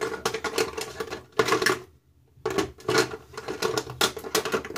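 Make-up products clicking and rattling against one another as someone rummages through them searching for a lipstick, a busy run of small knocks with a brief pause about two seconds in.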